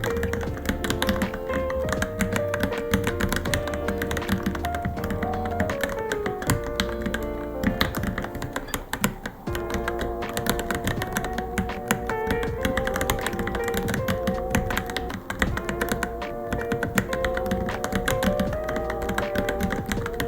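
Fast, continuous typing on a Varmilo Minilo mechanical keyboard: a dense, irregular stream of key clicks, over background music with a melody.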